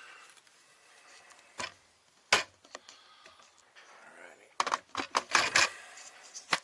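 Hard objects being handled: two sharp clicks or knocks about one and a half and two and a half seconds in, then a quick run of clicking and clattering about five seconds in.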